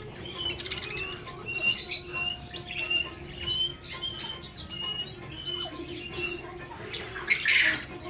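Many caged birds chirping at once in a busy bird shop, short high calls repeating over one another, with a louder harsh squawk near the end.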